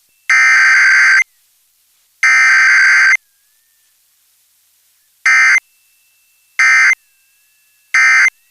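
Emergency Alert System SAME digital data tones: two long buzzing bursts about a second each and a second apart, finishing a three-burst header, then three short end-of-message bursts about 1.3 s apart. This is a required weekly test sent with no attention tone or voice message.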